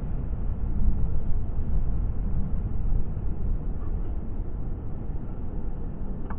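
Motorcycle riding along in traffic, heard from a helmet-mounted camera: a steady low rumble of wind on the microphone with the bike's engine running beneath it.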